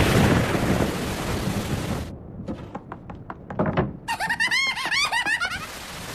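Cartoon sound effects: heavy rain with a loud crash at the start, then a quick run of sharp knocks, then a high squeaky warbling sound that rises and falls about five times a second.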